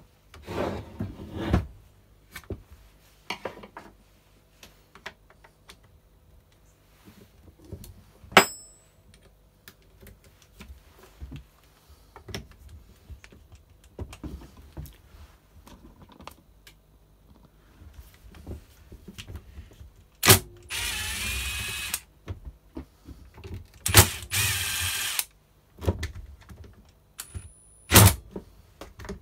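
Hand tools and parts on a Makita top-handle chainsaw being taken apart: scattered clicks and knocks, a sharp metallic clink with a short ring about eight seconds in, and two bursts of steady noise, each a second or so long, about two thirds of the way through.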